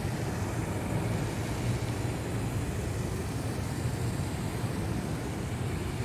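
Steady low rumble of city traffic in the open air.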